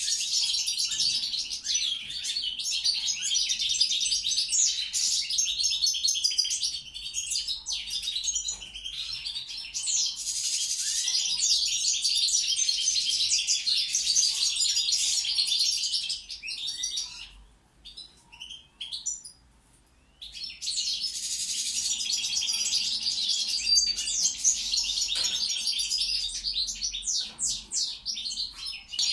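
European goldfinch (Balkan subspecies) singing: a fast, continuous run of twittering and trilled notes. It breaks off for a few seconds a little past the middle, then starts again.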